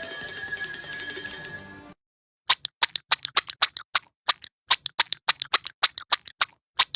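Two sound effects in a row: a bright, sustained ringing tone that stops about two seconds in, then, after a brief silence, a quick, uneven run of sharp clicks, several a second.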